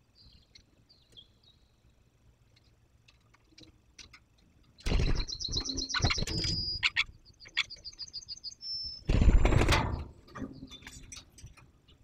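A woodpecker giving fast runs of sharp, high-pitched calls. Loud rustling flutters of its wings come about five seconds in and again near nine seconds.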